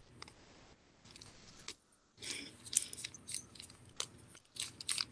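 Sheet of origami paper being folded and creased by hand, crinkling and rustling in short crisp bursts, busiest about two seconds in and again near the end.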